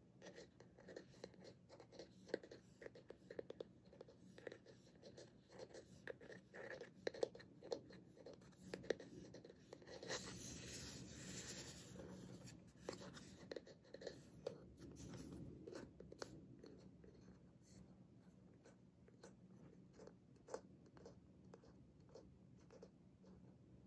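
Fingertips and nails tapping and scratching on the engraved wooden back of a bamboo hairbrush: a long run of faint irregular clicks, with a stretch of louder scratchy rubbing about ten seconds in.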